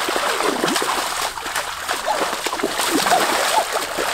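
Water splashing and sloshing, with many short chirping calls scattered over it.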